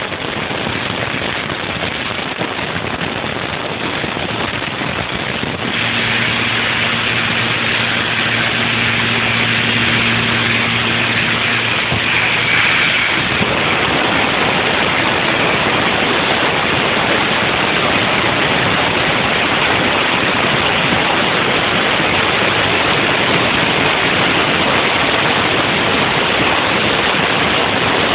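Haas VF-2 CNC vertical mill running a trochoidal milling cut, a steady rushing hiss like spraying flood coolant. A low steady hum joins for about seven seconds near the start of the second quarter, then the rushing fills out lower down and runs on evenly.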